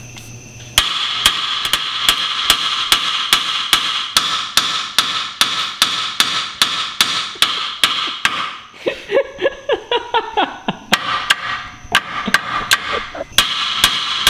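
A hammer strikes the steel steering knuckle of a VW Golf's front strut over and over, about three blows a second, with a metallic ringing between the blows. The knuckle is stuck on the strut tube and is not coming off. Past the middle the blows turn softer and irregular for a couple of seconds, then the steady rhythm resumes.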